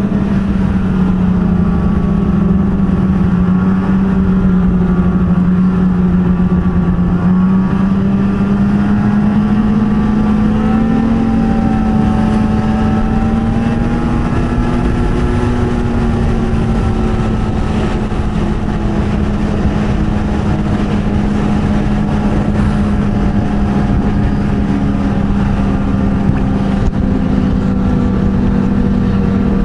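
Ski-Doo snowmobile engine running at steady cruising speed over a constant rush of noise, its pitch rising a little partway through and then easing back.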